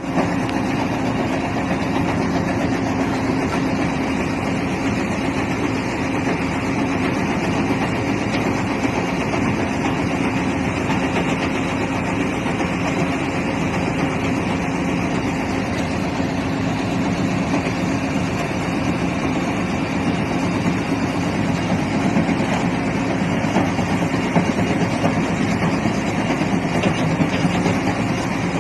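Jaw crusher and excavator at work on construction waste: heavy diesel machinery running steadily, a continuous drone with a held engine tone.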